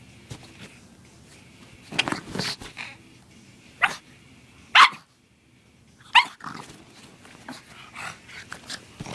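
Pug giving short, sharp play barks, four or five single yips spread over several seconds, the loudest about halfway through, from an excited, hyper dog.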